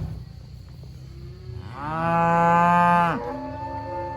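A cow mooing: one long, loud moo lasting about a second and a half, starting about one and a half seconds in. A fainter, shorter call follows right after it.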